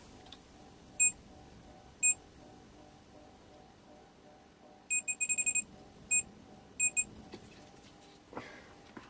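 Digital multimeter's continuity tester beeping as its probes touch points on a small circuit board. There are single short beeps about one and two seconds in, then a stuttering run of rapid beeps midway and a few more shortly after. Each beep signals a closed connection between the probed points.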